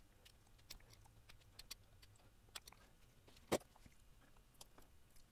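Faint scattered clicks and crackles of heat shrink tubing being slit with a utility knife and peeled off a battery cable lug, with one sharper click about three and a half seconds in.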